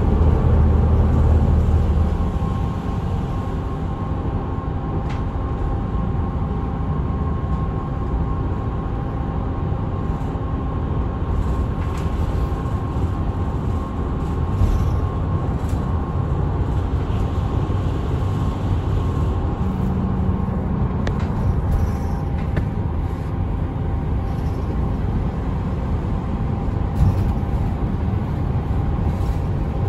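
Route bus engine and road noise heard from inside the cabin while driving: a steady low drone, a little stronger in the first couple of seconds, with a few light knocks and rattles.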